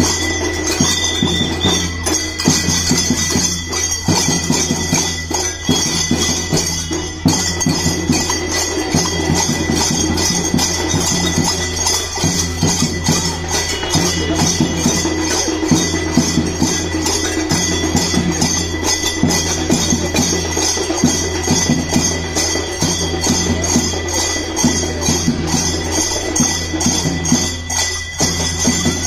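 A troupe of zanj, large brass hand cymbals, clashed together in a fast, even rhythm.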